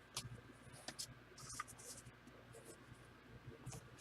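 Faint, short sliding swishes of trading cards being flipped off a stack by hand, several strokes spread across a few seconds.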